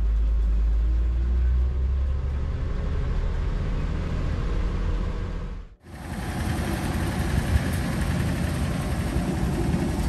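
Hudson Big Boy pickup's 212 cubic inch straight-six engine running, heard from inside the cab as the truck pulls away, its pitch rising as it accelerates. About six seconds in it cuts to a Studebaker Champ pickup's engine idling.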